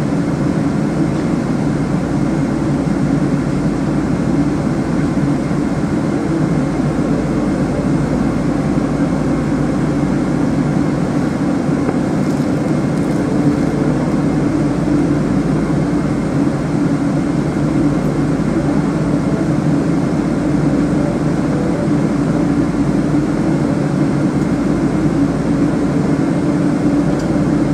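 Steady cabin noise inside a Boeing 777-200ER while taxiing after landing: an even low hum from the engines at idle and the cabin air, with no change in pitch or level.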